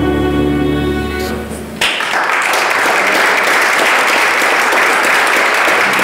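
A small string band of acoustic guitar, upright bass, fiddle and electric guitar holds and lets ring its final chord. The chord stops a little under two seconds in, and an audience breaks at once into applause that carries on.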